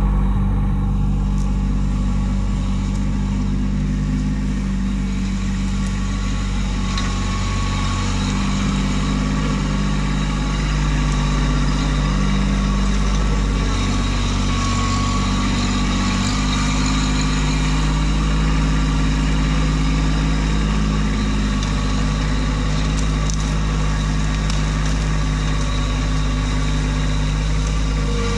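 Kubota B2601 compact tractor's three-cylinder diesel engine running steadily while the tractor works its loader, the engine note shifting in pitch a couple of times.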